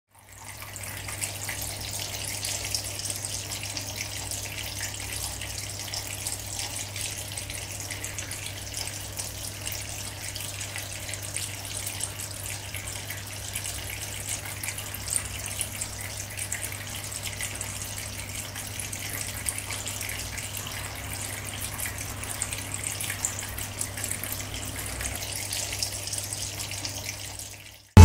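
Water trickling and splashing as thin streams fall over the ledges of a small tabletop water fountain, with a steady low hum underneath.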